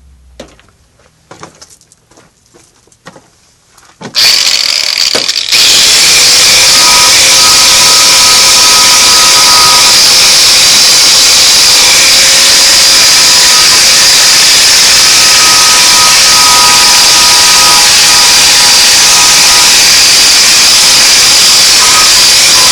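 A few light knocks and clicks, then about four seconds in a power tool starts up and runs steadily and very loud with a faint whine, stripping rust from the engine block.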